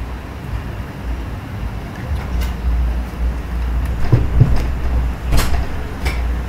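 Steady low rumble of background noise with a few scattered clicks and knocks.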